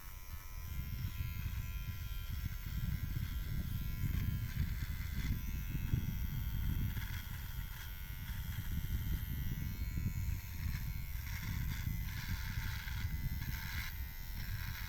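Electric hair clippers buzzing steadily through a haircut, over a low rumbling noise that starts right at the beginning.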